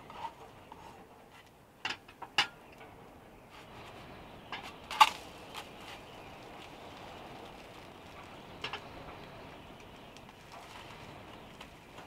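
Spatula and small frying pan knocking on a portable gas stove while an omelette is turned and the pan is shifted: a few sharp clatters, the loudest about five seconds in, over a faint steady hiss.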